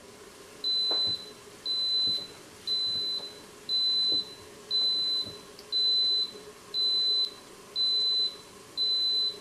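Instant Pot pressure cooker beeping to signal that its sauté cycle has finished: a steady series of high, single-pitched beeps, about one a second, each lasting about half a second.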